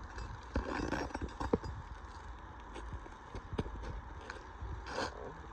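Scattered sharp clicks and knocks of a tool working under asphalt shingles to pull out a roofing nail, at irregular intervals.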